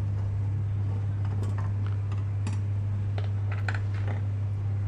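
Light, irregular metallic clicks of an Allen key working the bolts that fix a chair mechanism to a seat, over a steady low hum.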